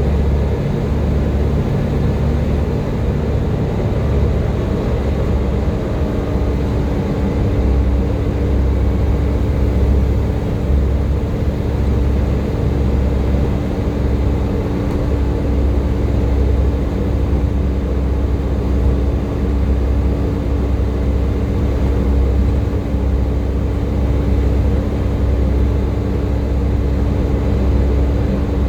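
Volvo B7TL bus's six-cylinder diesel running under way, with a low pulsing rumble and a steady whine held on top, the vacuum-cleaner-like "hoover" sound these buses are known for.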